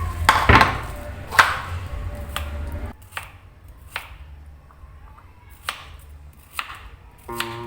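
A knife chopping vegetables on a cutting board in separate, irregular strokes, roughly one a second.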